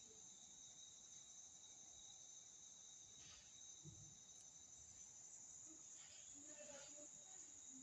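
Near silence with a faint, steady high-pitched trill and a few soft rustles.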